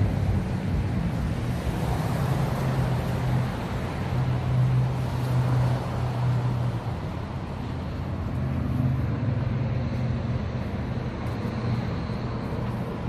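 Motor vehicle engines and road traffic noise, a steady low hum that swells and eases slightly.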